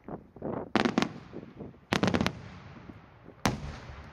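Daytime aerial firework shells bursting with sharp bangs: two about a second in, a quick run of four or five about two seconds in, and a single loud bang about three and a half seconds in, each trailing off in an echoing rumble.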